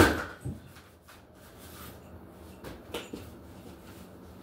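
A loud, sharp slap as someone swats at a bee, followed by a softer knock about half a second later and a few light knocks and handling sounds about three seconds in.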